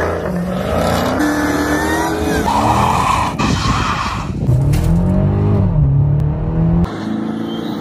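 Performance car engines revving hard in a string of short cuts, the pitch climbing and falling, with a stretch of tire squeal from a burnout a few seconds in.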